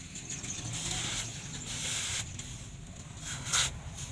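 Red-hot steel cleaver blade quenched in a water trough, hissing and sizzling as the water boils against it, loudest in the first two seconds and then easing off, with one brief louder burst about three and a half seconds in.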